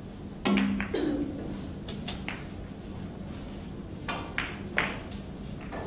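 A pool cue strikes the cue ball with a sharp click about half a second in, followed by several hard clicks of billiard balls knocking together. A few more ball clicks come around four to five seconds in.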